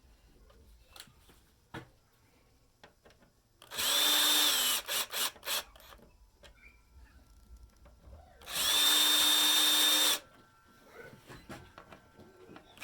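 Cordless power drill/driver running screws in. There are two runs of about a second each at a steady whine that spins up and winds down, with a few quick trigger taps after the first run and small clicks of handling between.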